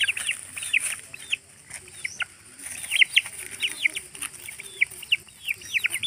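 Young Parrot Beak Aseel chickens peeping as they feed: many short, high peeps, each falling in pitch, several a second throughout.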